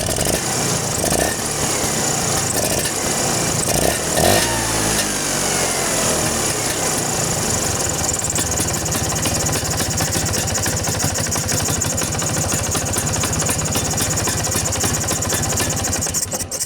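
Vespa two-stroke scooter engine running, with its carburettor mounting nuts freshly tightened against a squeal caused by a loose nut. It is blipped about four seconds in and falls back to a steady idle, then is switched off near the end.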